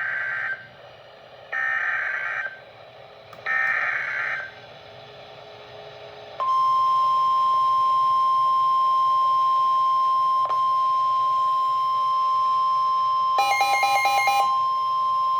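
Emergency Alert System SAME header: three short bursts of screechy digital data tones, about two seconds apart. They are followed by the steady single-pitched NOAA Weather Radio 1050 Hz warning alert tone, which holds for about nine seconds. Near the end, a brief rapid beeping pattern sounds over the alert tone.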